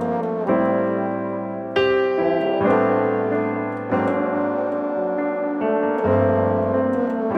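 Background piano music, held chords changing every second or so.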